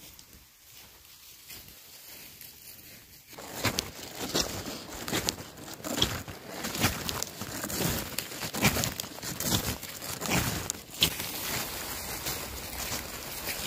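Footsteps crunching through snow close by, starting about three seconds in and going on in an even walking rhythm of a crunch roughly every half to three-quarters of a second.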